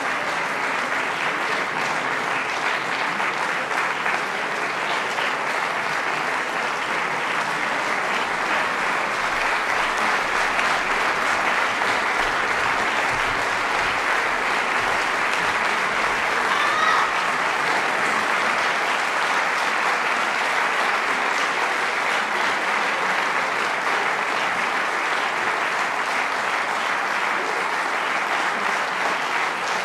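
Audience applauding steadily and continuously, with one short pitched call rising above the clapping about halfway through.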